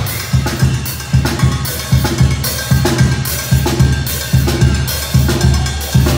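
Tamborazo percussion break: the tambora bass drum and snare drum play a steady beat on their own, the horns silent, with strong accents falling in pairs about once a second.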